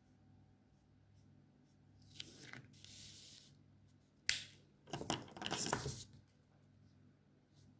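Alcohol markers being used and handled on paper: a scratchy stroke, a sharp click near the middle, then about a second of rougher scratching.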